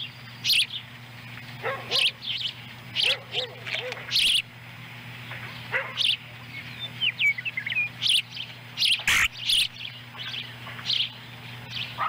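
Ospreys on the nest giving short, sharp chirping calls at irregular intervals, over a steady low electrical hum. A single knock about nine seconds in.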